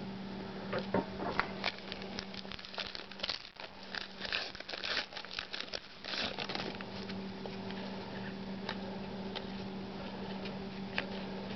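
A trading-card pack wrapper being torn open and crinkled, with cards rustling as they are handled: a run of irregular crackles and rustles through the first half that thins out to a few faint clicks.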